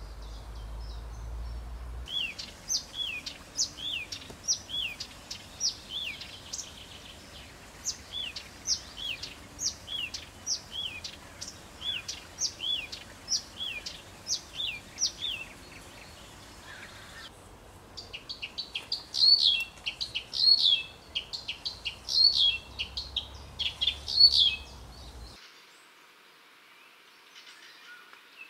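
Blyth's reed warbler singing. First comes a long run of short, downward-slurred high notes, repeated steadily. About two-thirds of the way in, a louder and faster stretch of rapid notes and whistles follows, which stops abruptly near the end.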